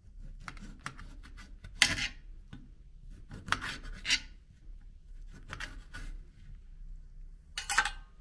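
A lemon being crushed in a meat grinder: about five separate bursts of rasping, crunching noise, the sharpest about two seconds in and near the end, over a low steady hum.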